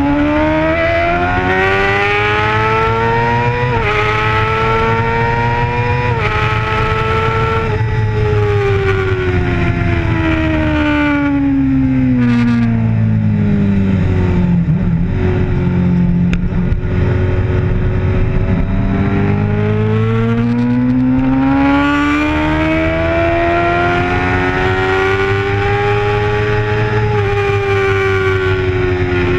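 Racing sport bike's engine at high revs, heard from the bike itself with wind noise. The revs climb with three quick upshifts, fall smoothly for several seconds as the bike slows, then climb steadily again with another upshift near the end.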